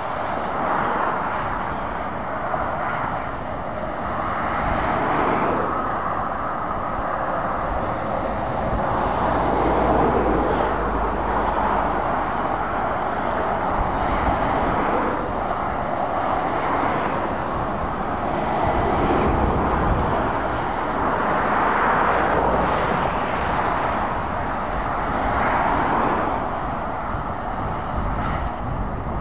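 Passing road traffic: a steady rumble of tyres and engines that swells and fades every few seconds as cars and lorries go by. A Scania 500S articulated lorry passes near the middle, with a low engine hum under the traffic for several seconds.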